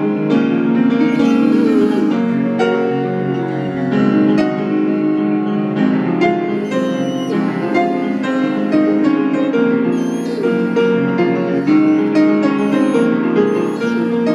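Piano being played, with a Great Pyrenees howling along in drawn-out howls that glide up and down in pitch several times. The piano is the loudest sound. The howling is the dog's habit of singing to the piano, not a sign of pain.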